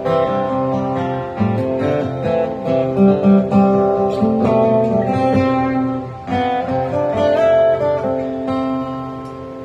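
Acoustic guitar music, strummed and picked notes.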